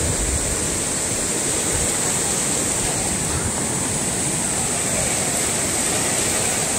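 Stream water rushing over rocks in a steady, unbroken rush.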